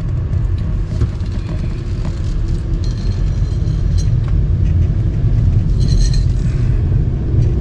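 Steady low rumble of a car in motion, road and engine noise heard inside the cabin, with a few faint ticks.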